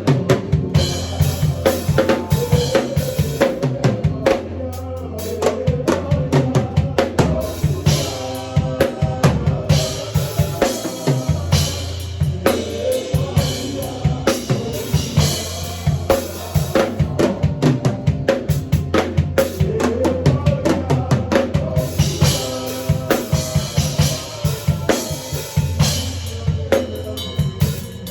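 Drum kit played in a fast, busy groove of bass drum, snare and rimshots, over sustained low notes and other pitched instruments.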